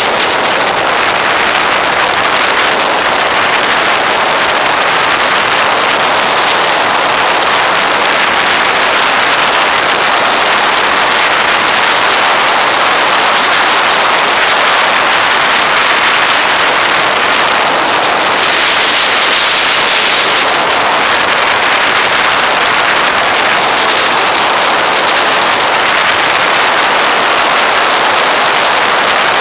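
Steady rush of wind and road noise over the camera microphone of a motorcycle riding at speed, with the engine buried under it. The hiss rises briefly about two-thirds of the way through.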